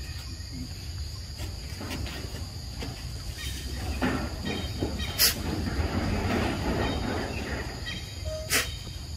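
Forest ambience: a steady high drone of insects over a low rumble, with a few short high chirps and two sharp clicks, one about five seconds in and one near the end.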